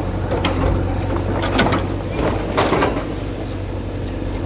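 A bulldozer's diesel engine running steadily under a few sharp metallic clanks and scrapes as it knocks down a shop's structure.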